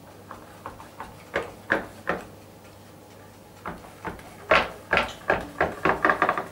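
Long knife slitting the rolled phyllo dough along a wooden rolling pin: a run of short, sharp cutting strokes, a pause, then quicker strokes near the end.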